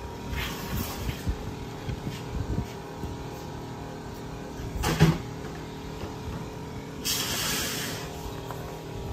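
Handling noise of items being picked up and set down on a table: light knocks, one sharper knock about five seconds in, and a rustle a couple of seconds later, over a steady low hum.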